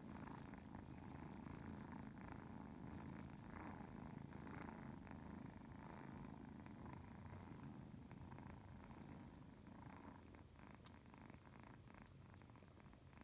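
Faint, steady cat purring from a cat nursing her kitten, easing off a little over the last few seconds.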